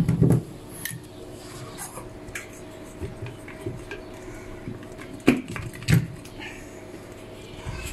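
Spoon clinking against a glass blender jug and glass sugar bowl as sugar is tipped in, then the plastic lid being fitted onto the blender jug with a couple of louder knocks about five to six seconds in.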